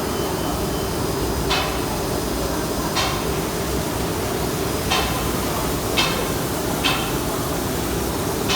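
MSS M7-1300 brush relief-sanding machine running with a steady mechanical noise and hum. Five sharp knocks come at irregular intervals, a second or two apart.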